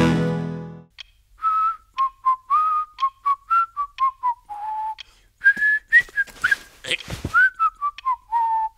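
A person whistling a tune in two phrases, each starting higher and stepping down to a longer low note, with little slides between notes. It follows the last ringing notes of the opening theme music, which die away in the first second, and a few soft knocks are heard among the notes.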